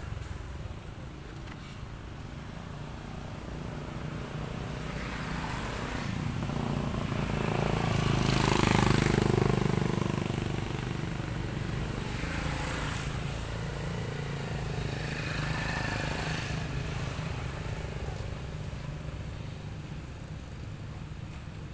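A motor vehicle's engine passing by. The engine noise rises to a peak about eight to nine seconds in, then slowly fades away.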